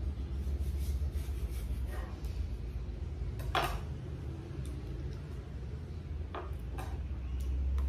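A few light clicks and clinks of a paring knife and tableware while a ripe mango is peeled and sliced, over a steady low hum. The loudest clink comes about three and a half seconds in, and a few softer ones come near the end.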